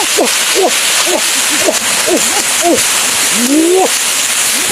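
Short hooting animal calls, several a second, each arching and falling in pitch, with one longer rising call near the end, over a steady high hiss.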